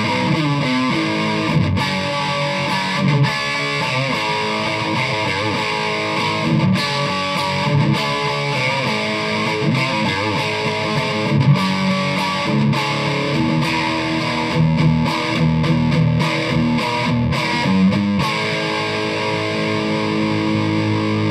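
Electric guitar with Gibson mini humbuckers played through a Sollo Amps Mini 8 amplifier and a 1x12 cabinet with an Eminence GB128 speaker, on a distorted setting with no effects. It plays a run of picked riffs and single notes, then lets a chord ring out over the last few seconds.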